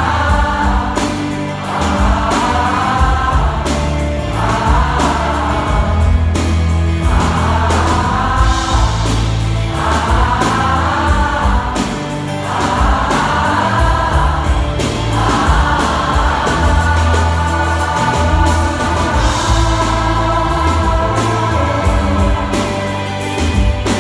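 A large mixed choir singing a Swedish pop song over a low bass line. It sings in short phrases at first, then moves to longer held notes about two-thirds of the way through.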